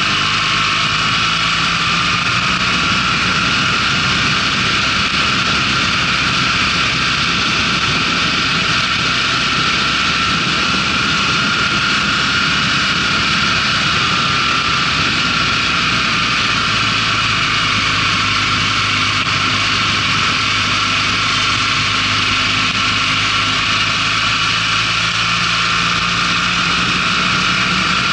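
Motorcycle engine running at road speed, its note rising as the bike speeds up early on and dropping back around the middle. A steady rush of wind over the microphone runs underneath it.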